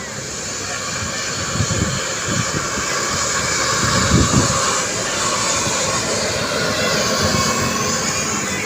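Heavy road vehicle passing close by: engine and tyre noise swelling to a peak about four seconds in, then holding steady, with a few deep thumps along the way.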